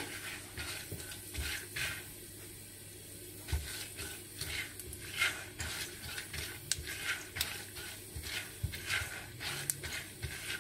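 Popcorn kernels being stirred in hot oil in a stainless steel pot with a silicone spatula: irregular scraping and kernels clicking against the pot bottom over a faint sizzle. The kernels are swelling and yellowing but have not yet started to pop.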